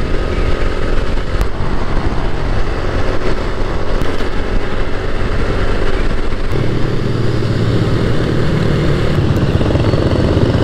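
A motorcycle engine runs while riding in city traffic, under loud rushing wind and road noise on the microphone. About six and a half seconds in, the engine's low note abruptly becomes stronger.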